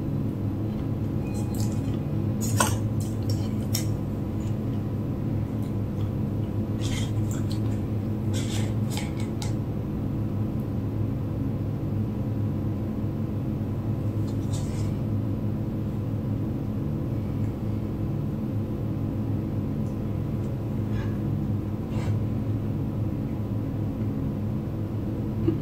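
Steady low hum throughout, with scattered light clicks and taps of a plastic fork against a small plastic dessert cup as a piece is lifted out and eaten.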